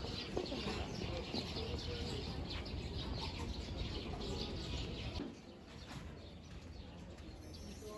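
Many small birds chirping at once over a low background murmur; the chirping drops away about five seconds in.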